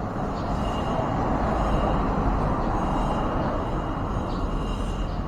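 Road noise of a passing vehicle: a broad rush that swells over the first two seconds and slowly eases off. A few faint short bird chirps sound above it.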